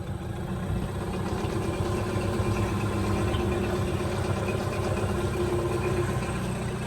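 8-horsepower two-stroke outboard motor running steadily on a small dinghy, getting a little louder about a second in.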